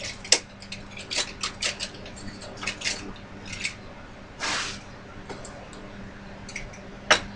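Small metal hand tools, taps and a tap handle, clinking and rattling as they are picked through in a box. It comes as a run of short sharp clicks, with a longer scrape about four and a half seconds in and a loud click near the end.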